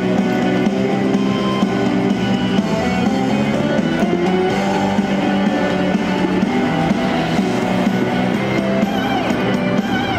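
Pop-rock instrumental music with guitar and drums, the song's intro playing before the vocal comes in.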